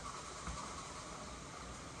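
Faint clicks and scrapes of a small hand tool working on the metal action of an old pellet gun, over a steady background hum and hiss.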